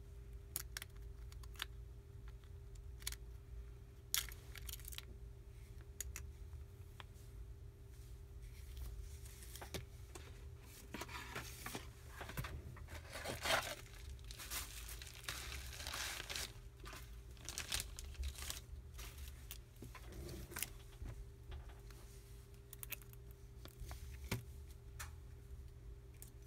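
Small plastic clicks, scrapes and crinkling as a Samsung Galaxy S4's housing and circuit board are pried and lifted off its display frame by hand, busiest with crinkling in the middle. A faint steady hum runs underneath.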